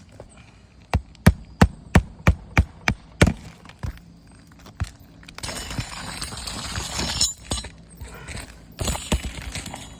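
Hammer nailing a replacement asphalt shingle onto a roof by hand: a run of sharp strikes about three a second, a few more later, with a stretch of scraping in the middle.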